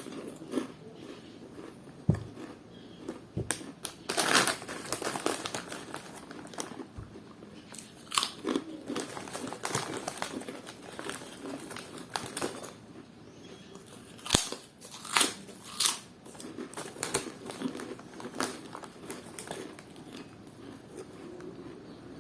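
Close-miked chewing of crunchy bacon-flavoured puffed snacks, with crinkling of the snack packet, coming in irregular bursts with a few sharp clicks.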